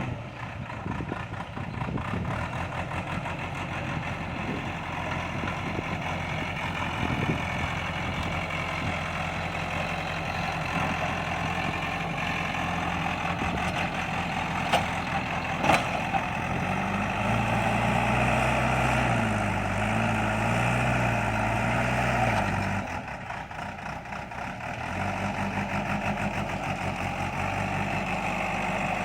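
Heavy diesel engine of construction machinery running steadily. About 17 seconds in it revs up and its pitch wavers under load, then it drops back and settles near the end. Two sharp knocks sound close together about halfway through.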